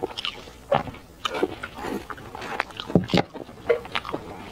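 Close-miked eating sounds: wet lip-smacking, chewing and sucking while gnawing sticky braised lamb-leg meat off the bone. These come as irregular short smacks and clicks, with two louder smacks about three seconds in.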